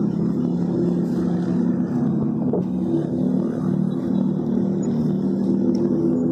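A vehicle engine running steadily at low speed, a constant low hum.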